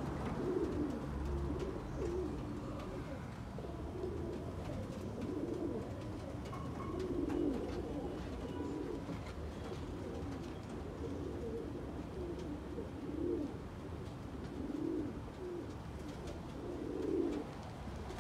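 Domestic pigeons cooing close by, a low coo every second or two.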